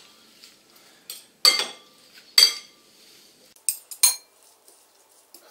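Metal spoon clinking against a glass salad bowl as a dressed salad is tossed: about five sharp clinks at uneven intervals, each with a brief ring.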